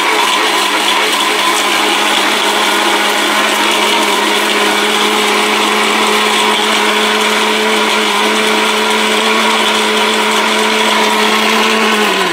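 1600-watt electric blender running steadily in its large jar, grinding turmeric with water into a paste. Near the end it is switched off and its pitch falls as the motor spins down.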